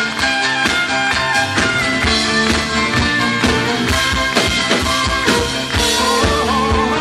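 Live folk-rock band playing an instrumental passage, sustained melody notes over a steady drum beat, harshly recorded on a compact camera's microphone.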